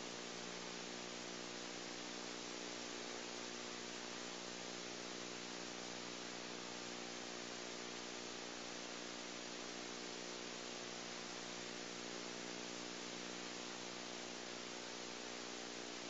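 Steady hiss with a low electrical hum underneath, unchanging throughout, with no impacts or other events.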